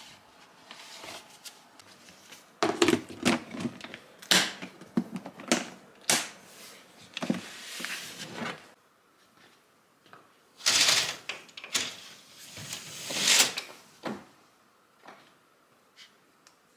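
A run of sharp plastic clicks and knocks from a kimchi container being handled, followed a few seconds later by two louder bursts of rustling noise.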